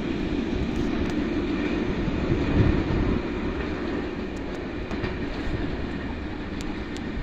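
Train rolling away after passing through, its wheel-on-rail rumble fading slowly, with a few faint clicks in the second half.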